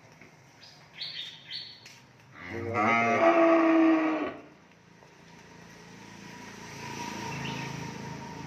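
A young cow bawling once: a loud call of nearly two seconds that rises in pitch at its start and then holds steady. It is followed by a quieter, lower sound that swells over the last few seconds.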